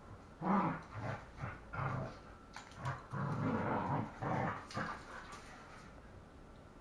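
Two dogs play-fighting, growling in a string of short, uneven bursts that die away about five seconds in.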